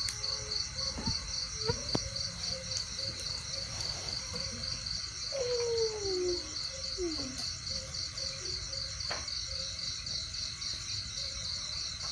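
Crickets chirping steadily in an even, pulsing rhythm of about three chirps a second, with a couple of short falling calls between about five and seven seconds in.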